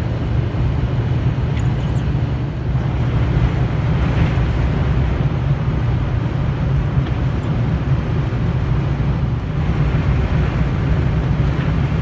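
Steady in-cab noise of a pickup truck carrying a truck camper, cruising at about 55 mph in high winds: a constant low drone of engine and tyres with wind and road noise over it.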